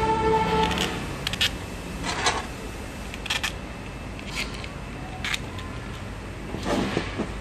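Scattered small clicks and brief scrapes of a clear plastic peristaltic pump head being handled and fitted back together with a hex key. There is a slightly longer rustle of handling near the end.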